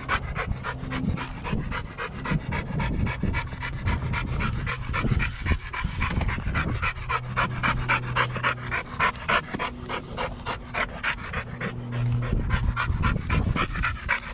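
A dog panting hard and fast, about five breaths a second, winded from chasing. A low hum comes and goes underneath.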